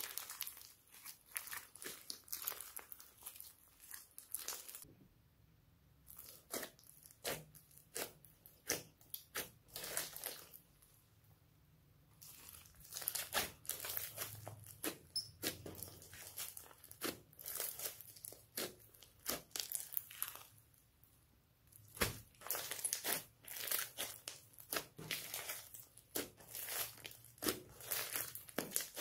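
Glossy slime mixed with foam beads being squeezed, stretched and folded by hand: dense sticky crackling and popping clicks, broken by a few brief quieter pauses.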